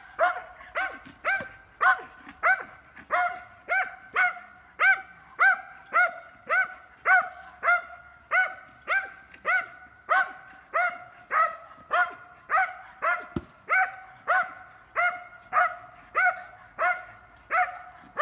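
Belgian Malinois barking steadily at about two barks a second, a long unbroken run of sharp, even barks aimed at a helper hidden in a protection-training blind.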